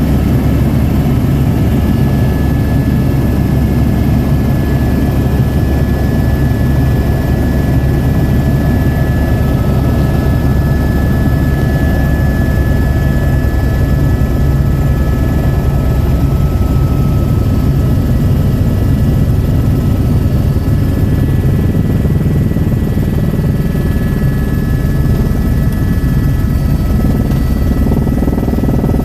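Helicopter in flight: a steady, rapid rotor chop with a constant high whine over it.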